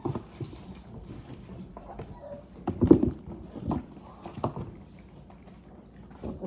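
Four-week-old goldendoodle puppies moving about and playing in their pen: scattered knocks and taps, loudest about three seconds in.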